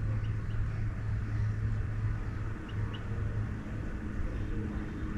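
Steady low motor rumble with a constant hum, like an engine running at a distance.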